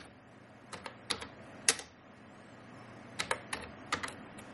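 Computer keyboard keys being typed: a handful of separate keystroke clicks, then a pause of about a second and a half, then another quick run of keystrokes, as a short command is typed.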